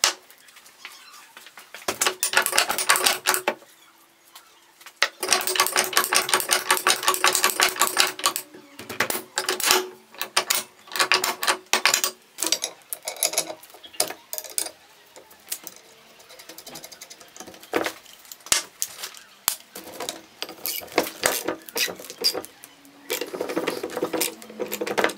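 Hi-Lift jack being worked: its steel climbing pins click in rapid runs as the runner travels along the perforated standard bar, then scattered metal clacks and knocks.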